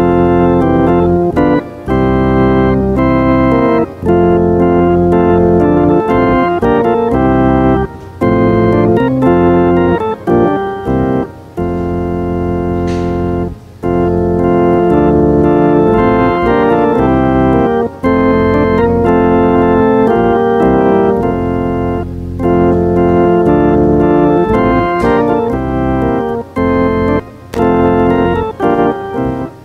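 Organ music: sustained chords that move from one to the next, with short breaks between phrases.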